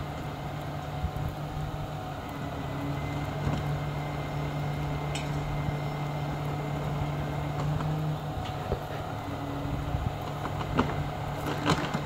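Truck-mounted crane's diesel engine running steadily, with a low hum that rises a little in level partway through, and a few sharp cracks near the end.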